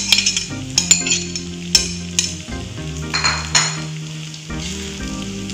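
Sagu noodles, bean sprouts and spring onions stir-frying in a wok: a spatula scrapes and clicks against the pan over a steady sizzle. The scraping eases off about four seconds in, leaving mostly the sizzle.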